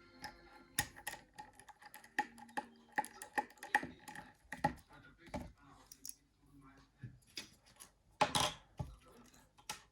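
Small parts of a Nokia 9300i phone being handled on a work surface: irregular light clicks and taps of plastic pieces, with a louder, longer scrape a little past eight seconds in.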